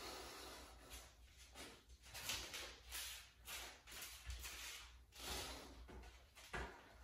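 Faint breathing from a man exerting himself in a push-up workout: soft puffs of breath in and out, roughly once a second, irregular.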